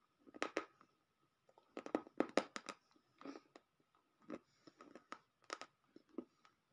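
Close-miked mouth crunching and chewing pieces of white slate pencil. Crisp crunches come in several short clusters with brief pauses between.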